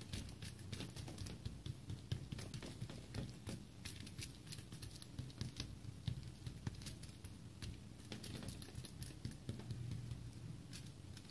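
Hands patting and pressing pizza dough out on a foil-lined tray: faint, scattered light taps and crinkles from the aluminium foil.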